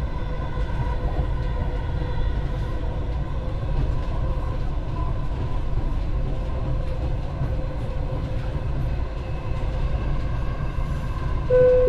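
Dubai Metro train running on its elevated line, heard inside the carriage: a steady low rumble with a faint steady electric whine over it. Near the end a two-note chime steps down in pitch, the signal that comes before an onboard next-station announcement.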